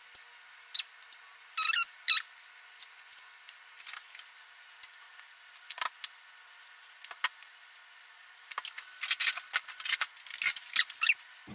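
Sparse clicks, scrapes and short squeaks of food being served: a fork against a frying pan and paper plates as fried sausages and onions go onto the bread. Near the end comes a quicker run of clicks and squirts as mustard and relish are squeezed on.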